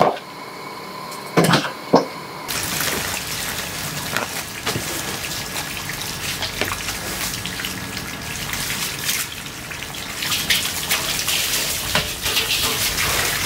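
Two sharp knocks, then water running and splashing steadily as tomatoes are washed in a plastic basin and water is shaken off a steel colander.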